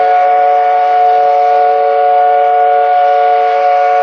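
Steam whistle of a paddle steamer blowing one long, steady, loud blast, a chord of several tones over a light hiss of steam.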